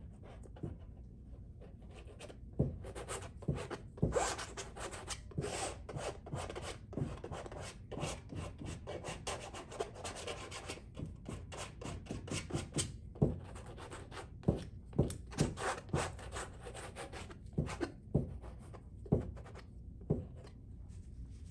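Palette knife spreading and scraping thick oil paint across a canvas: a run of irregular rasping strokes with a few sharper taps, busiest through the middle.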